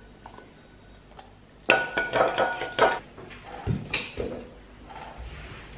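Kitchenware clinking: a quick run of sharp, ringing clinks of metal against crockery, followed by a few softer knocks.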